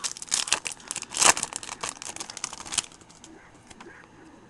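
Foil wrapper of a baseball card pack being torn open and crinkled by hand: a dense run of crackles with one loudest rip about a second in, dying away just before three seconds in.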